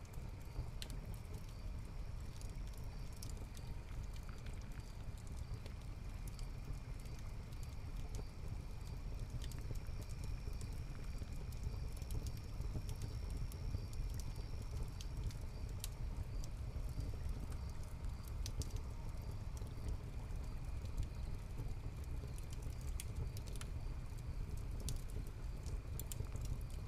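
Layered ambience: a steady low rumble of the watermill's water and turning wheel, sparse crackles and pops from a wood hearth fire, and crickets chirping in an even rhythm with a continuous high trill.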